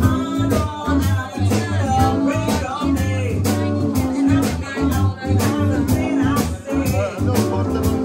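Live band playing: a woman singing into a microphone over electric guitar, electric bass, keyboard and a drum kit keeping a steady beat.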